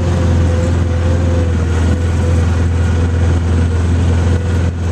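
A loud vehicle's engine running steadily: an even low drone with a steady higher whine over it.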